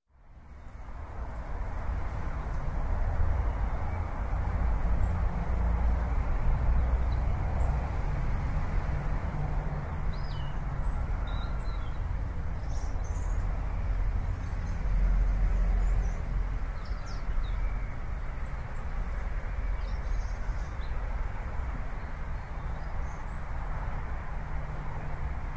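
Steady outdoor background noise with a low rumble, fading in at the start, with brief high bird chirps scattered between about ten and twenty seconds in.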